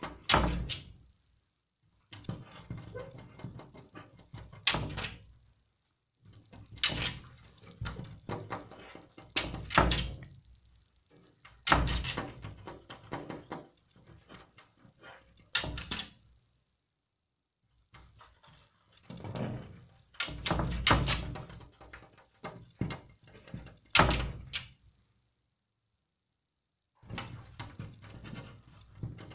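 Golden retriever licking a glass pane, its tongue and muzzle slapping and squeaking on the glass, with sharp knocks and rattles of the pane in its frame. It comes in bursts of several seconds, broken by short pauses.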